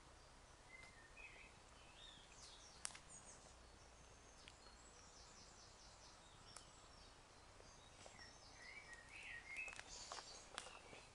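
Faint birdsong: short chirping, warbling phrases from small birds, in a few bursts with the busiest near the end, over a low steady hush. A few sharp clicks stand out, the loudest about three seconds in.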